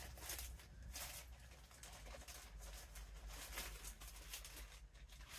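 Faint rustling and crinkling of a clear plastic clothing bag being handled, in short irregular bursts over a low steady hum.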